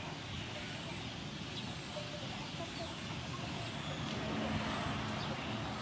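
Steady outdoor background hum, with a few faint bird calls now and then.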